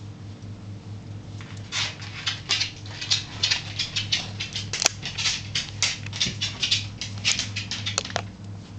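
Two very young whippet puppies squeaking and yipping while they play-fight, in a rapid, irregular run of short high-pitched squeaks that starts a second or two in and stops shortly before the end, over a faint steady hum.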